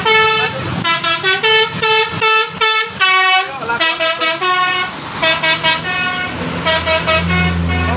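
Bus telolet horn, a Basuri multi-tone air horn, playing a quick tune of short notes that jump in pitch. About two-thirds of the way through, the low rumble of the bus engine swells up under the horn.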